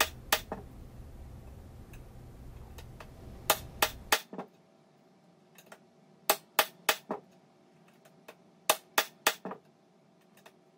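Ball-peen hammer striking the plunger of a C-frame dimpling tool, pressing dimples into the rivet holes of an aluminium aircraft skin. Sharp metallic strikes, mostly in quick pairs and threes, with short pauses between the groups.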